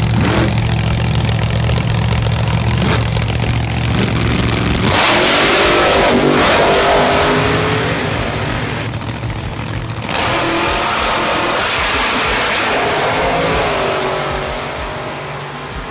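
Drag racing car engines. The first five seconds are a steady low drone. Then comes a louder full-throttle run with the engine pitch rising and falling, and a second surge about ten seconds in.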